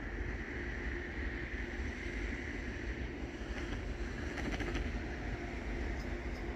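Steady low rumble and hiss of open-air background noise, with a few light clicks about four and a half seconds in.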